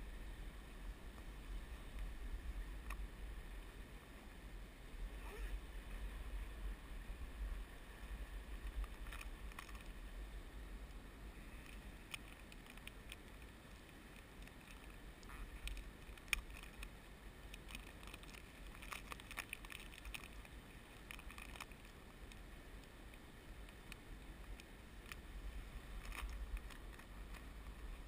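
Flowing river water around a wading angler, with a steady low rumble and a few faint scattered clicks, one sharper about halfway through.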